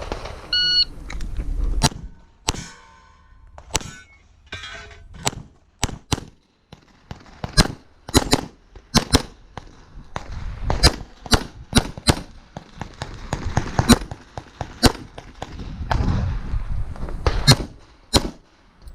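Electronic shot timer beeps once, under a second in. A pistol then fires a long string of shots, often in quick pairs, with short pauses between groups as the shooter moves and reloads through a timed competition stage.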